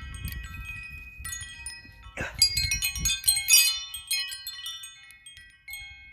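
Wind chime ringing in strong gusts, many notes struck and overlapping, with a busy flurry of strikes from about two seconds in. Low wind rumble on the microphone underneath.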